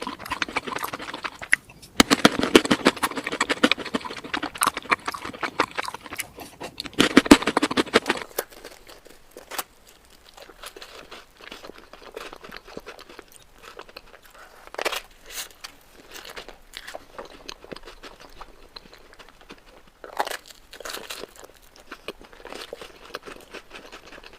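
Close-up sound of someone eating sweets: loud, dense crunching and chewing for the first eight seconds or so, then quieter, scattered chewing and mouth sounds.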